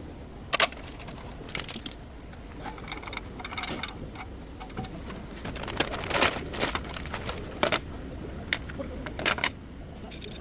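Metal hand tools and hardware clinking and rattling in irregular sharp clicks, several of them loud, as in handling wrenches, sockets or bolts during suspension work.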